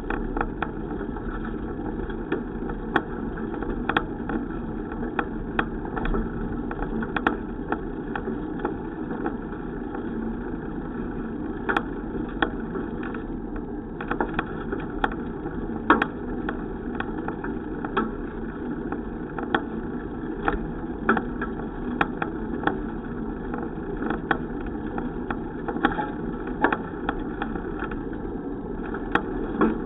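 Steady rumbling noise of a bicycle ride, with irregular light clicks and rattles scattered through it.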